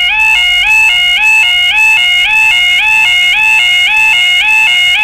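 Level crossing yodel alarms sounding while the barriers are down, a loud two-tone warble switching rapidly between a high and a low pitch, several times a second. More than one alarm sounds slightly out of step, giving an overlapping warble; it warns that the crossing is closed for an approaching train.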